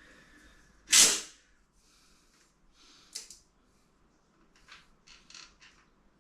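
Handling noises from hands-on work: a short, loud rasp about a second in, a sharp click a couple of seconds later, then a few softer scrapes and taps.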